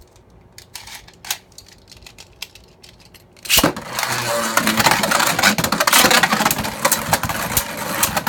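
Light clicks as Beyblade Burst tops are readied on their launchers, then both tops, Wonder Valtryek and Vise Leopard, are launched about three and a half seconds in and spin and clash in the plastic stadium with a dense, continuous rattle of hits.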